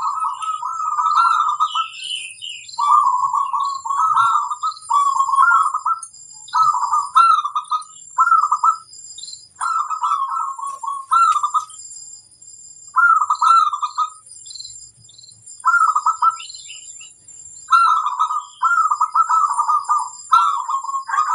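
Zebra doves (perkutut) cooing: rolling, trilled coo phrases repeated again and again, several overlapping, with short pauses between runs. Fainter high chirps and a thin steady high-pitched whine sit behind them.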